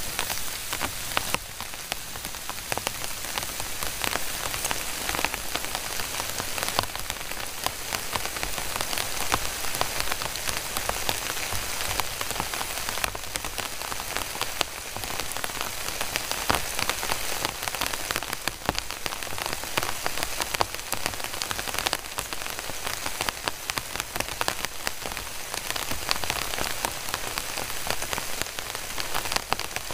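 Heavy rain falling steadily on a tent and tarp, a dense spatter of drop impacts with no let-up.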